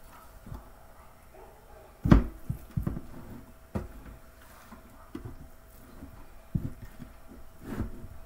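A raw rack of pork ribs being handled on a metal baking sheet: irregular dull thumps and knocks as the meat is pressed, shifted and rubbed on the pan, the loudest about two seconds in.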